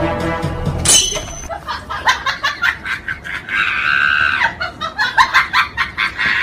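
A person's voice laughing and shrieking in quick, choppy bursts, with one longer held cry in the middle; it starts and stops abruptly, as an added comic sound effect.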